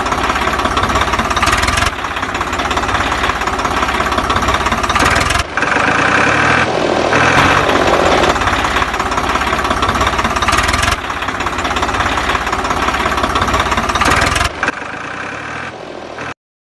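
Engine sound of a miniature model walking tractor: a steady, fast knocking chug like a small engine idling, changing abruptly at a few points. It cuts out to silence just before the end.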